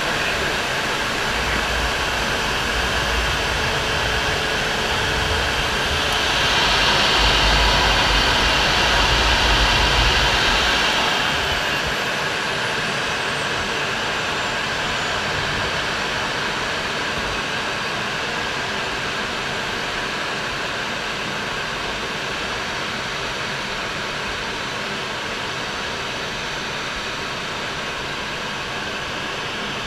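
Steady noise of a MiG-29 fighter in flight, from its twin turbofan engines and the airflow. It swells louder for about five seconds from around six seconds in, then settles back, with a faint falling high whine as it eases.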